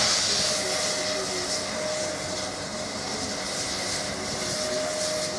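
Peppercorn A1 steam locomotive 60163 Tornado standing with steam hissing steadily. The hiss is brightest at the start and eases within the first half second. From about half a second in, a faint steady tone runs under the hiss.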